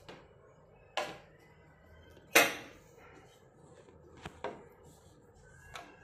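Handling knocks and clicks as an HDMI cable and its plug are fitted into the back of a TV. There are a few sharp knocks spaced apart, the loudest about two and a half seconds in.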